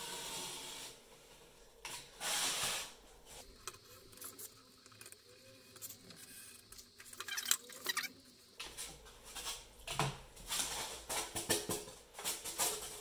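A snap-off craft knife drawing through 10 mm XPS foam board, each stroke a scratchy hiss, the loudest about two seconds in. In the second half come a run of sharp clicks and knocks as the cut foam is pulled apart and handled.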